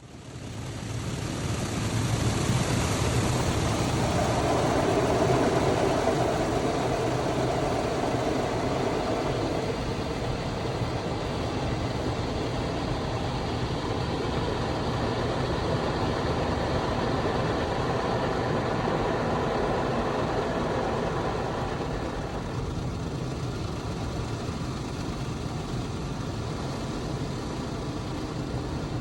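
Car wash running: a steady rush of spraying water over a low machine hum, fading in over the first couple of seconds.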